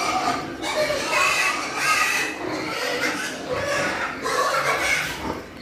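Pigs grunting and calling over and over.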